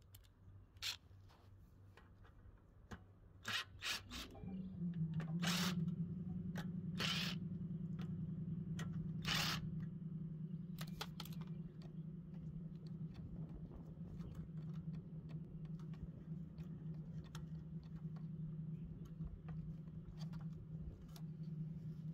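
Small metal clicks and scrapes of a hand tool working on the screws of a small engine's fuel tank mount. Under them, a steady low hum comes in about four seconds in and carries on.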